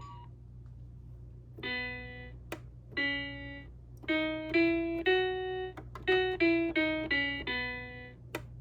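Toy's electronic tune, a run of separate plucked-sounding notes through its small speaker, starting about two seconds in. Two sharp clicks are heard, one early and one near the end.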